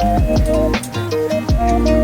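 Background music: a melody over a held bass line and a steady drum beat.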